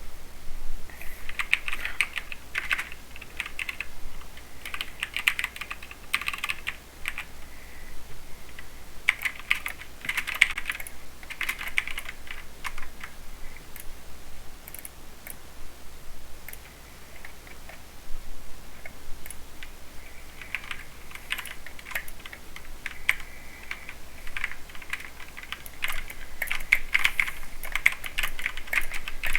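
Mechanical keyboard with Cherry MX Silver linear speed switches being typed on in quick bursts of key clicks, with a sparser stretch of keystrokes midway and a busy run of fast typing near the end.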